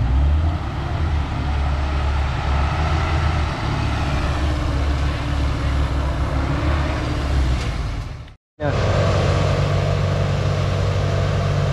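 Kubota DC93 combine harvester's diesel engine running hard with a deep, steady rumble as the crawler tracks pull the machine up the ramps after its header dug in at the bridge. The sound cuts out abruptly about eight seconds in and resumes at once, a little steadier.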